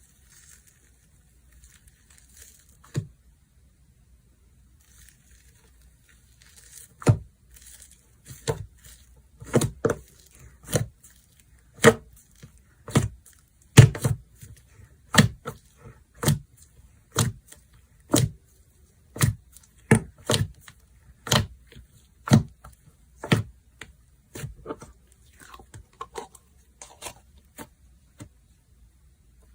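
Slime being squeezed and played with by hand: soft crinkling at first, then sharp pops about once a second from about seven seconds in.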